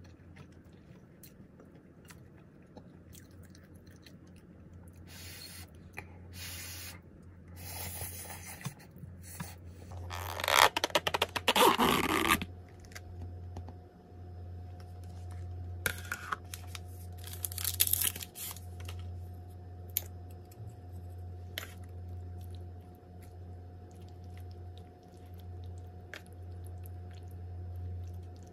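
Handling of a plastic takeout container: scattered plastic crinkling, then a loud stretch of crinkling and tearing about ten seconds in that lasts about two seconds as the packaging and lid come off, followed by lighter crinkles and clicks. A steady low hum runs underneath.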